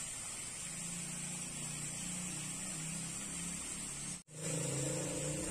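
Outdoor ambience: a steady high hiss over a low, wavering hum, cut off for an instant about four seconds in, after which the hum is louder.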